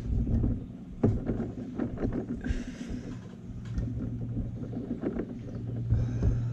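Light clicks and knocks of a Honda Magna 750 carburetor bank being pushed and seated together by hand, with a sharp knock about a second in, over a steady low hum and rumble.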